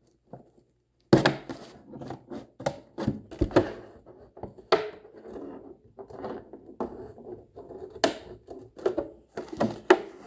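Scissors cutting a hole in a plastic water jug: irregular snips and crackling, crinkling plastic, starting about a second in.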